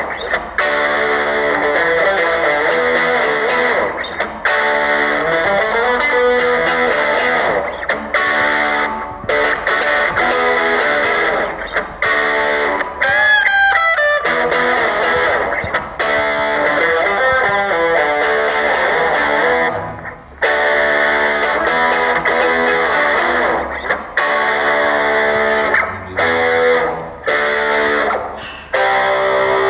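Electric guitar music, plucked and strummed with effects, playing steadily with a few brief breaks and a wavering, bending passage about halfway through.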